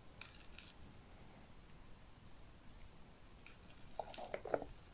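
Mostly quiet, then near the end a quick series of soft plastic clicks and taps as a clear plastic lid is pressed down onto a spider's container.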